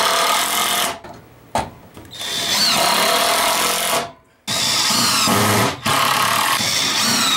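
Cordless power drill driving screws into wood to fasten pipe straps, running in four bursts with short pauses between them; the motor's whine rises and falls in pitch as the trigger is worked and each screw seats.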